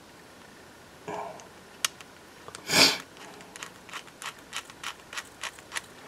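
Small precision screwdriver clicking on the tiny screws as they are driven back into an iPhone 6 Plus's metal shield plate: a run of about eight light clicks, some three a second, in the second half. Before them, a little before the middle, comes a short loud sniff, the loudest sound.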